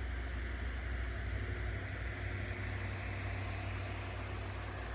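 Steady low mechanical hum with a faint even hiss, unchanging throughout: background running noise of a machine or fan.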